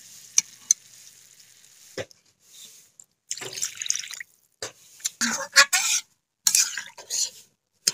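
Water poured into a steel karai of chicken curry, splashing into the hot gravy in several separate goes, with a few clicks at the start.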